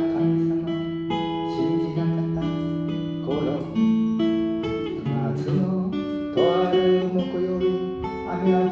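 Acoustic guitar strumming chords in a steady rhythm, an instrumental introduction ahead of the sung verse.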